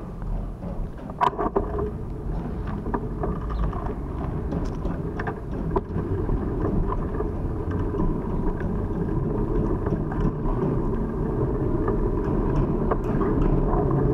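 Steady low rumble of a moving vehicle with wind on the microphone, slowly growing louder, with a few light clicks.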